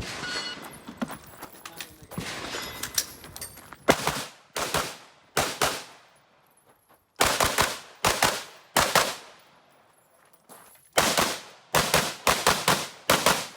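Rifle shots fired in quick strings of three or four, about two a second with short pauses between strings, each shot followed by a brief echo. Before the first shot there is a few seconds of rustling handling noise.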